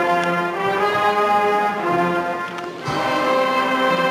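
Band music dominated by brass, playing slow held chords that change about once a second.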